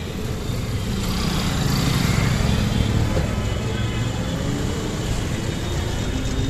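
Busy city street traffic heard from an open rickshaw: engines of scooters, motorcycles and a small goods carrier running close by over a steady traffic hum. A low engine drone swells about a second in and eases near the end.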